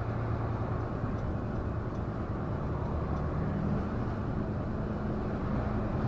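Semi truck's diesel engine running steadily under way, with road and tyre noise heard from the cab. A higher engine tone joins the low drone about halfway through.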